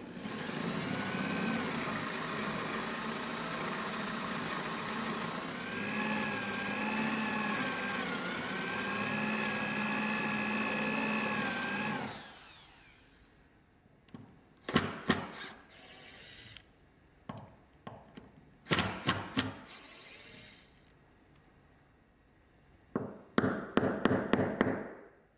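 Cordless drill spinning a 1 1/8 inch Forstner bit, boring countersink holes for a bronze gudgeon through a plywood guide into varnished walnut: a steady whine whose pitch dips a little as the bit cuts, stopping about twelve seconds in. After that, several short clusters of sharp scraping or tapping sounds.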